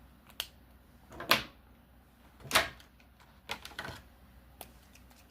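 Handling of colouring markers: a handful of separate clicks and taps a second or so apart, the loudest about a second in and again about two and a half seconds in.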